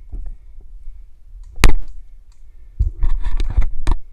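Airsoft pistol shots: one sharp, loud crack about one and a half seconds in, then a quick string of clicking shots near the end.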